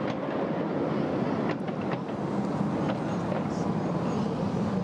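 7¼ in gauge miniature railway passenger cars rolling along the track: a steady rumble of wheels on rail with a few irregular sharp clicks from the rail joints.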